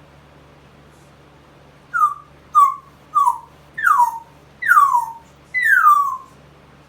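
A pet parrot giving six falling, whistled whines in a row, each a little longer than the last, a dog-like whimper it has picked up.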